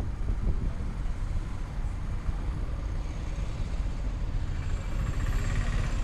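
Road traffic passing, a steady low rumble of vehicles.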